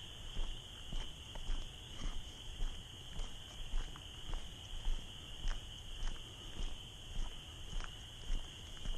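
A steady, high-pitched night chorus of calling animals, which the uploader takes for tree frogs, with footsteps on a trail about twice a second.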